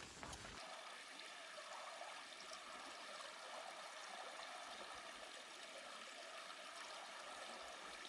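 Faint, steady running water of a mountain stream.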